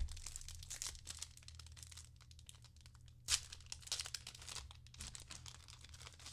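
Trading card pack wrapper crinkling and tearing as it is ripped open and handled, in two main bursts about three seconds apart with lighter rustling after.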